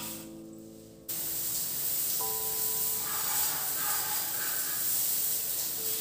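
Water running onto a tiled bathroom wall: a steady hiss that starts suddenly about a second in, under soft background music.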